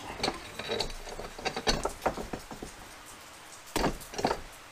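Handling noise of a small mower tire on its rim being worked onto a Harbor Freight mini tire changer's steel spindle: scattered clicks, light scrapes and rubber rubbing, with two louder knocks near the end as the wheel goes down onto the changer.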